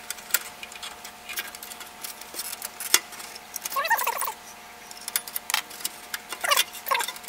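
A connector being unplugged and a circuit board worked out of its slot in a metal card cage: scattered clicks and knocks, the sharpest about three seconds in, with short squeaks as the board slides in its guides, around four seconds in and again near the end.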